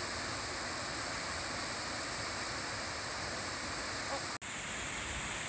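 Steady rushing roar of the High Falls of the Baptism River pouring into its plunge pool, broken by a sudden brief drop-out about four seconds in.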